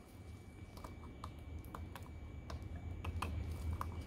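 Scooter wiring harness being handled: scattered light clicks and taps of plastic connectors and wires, irregular, over a low steady hum.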